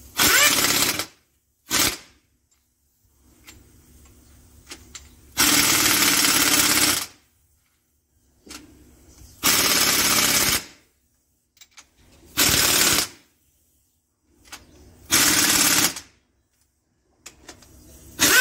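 Pneumatic impact wrench hammering as it runs down the cylinder head bolts of a WD615 diesel engine during head fitting. It fires in seven short bursts of about a second each, a few seconds apart as it moves from bolt to bolt.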